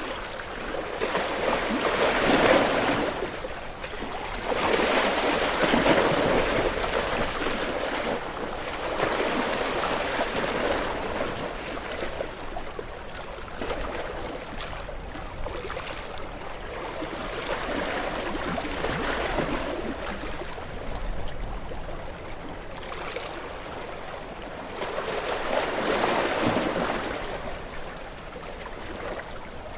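Ocean waves breaking on a rocky shore, the surf swelling and falling back in irregular surges, loudest a couple of seconds in, again around five to six seconds, and once more near the end.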